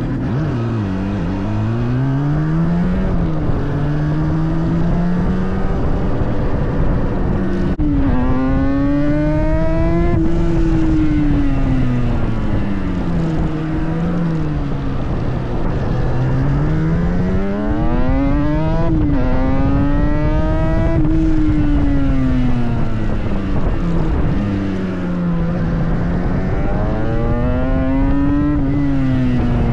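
Yamaha racing motorcycle engine heard from an onboard camera, its note climbing and falling as the bike accelerates and slows, with sudden drops in pitch at the gear changes, over a steady rush of wind and road noise.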